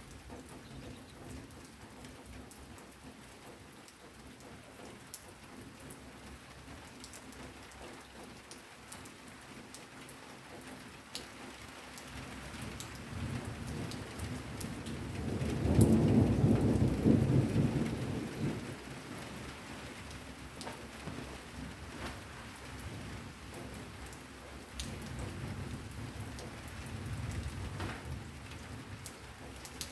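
Steady rain falling, with many small drop ticks, and a roll of thunder that builds to its loudest about halfway through and then dies away; a fainter rumble of thunder follows near the end.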